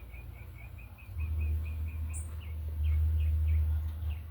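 A bird chirping in a fast, even series of short high notes, about five a second, over a low rumble that swells about a second in and is the loudest sound.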